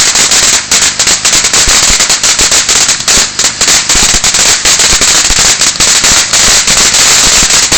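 A long-running firework crackling and banging without pause, a dense rapid stream of loud sharp cracks and pops.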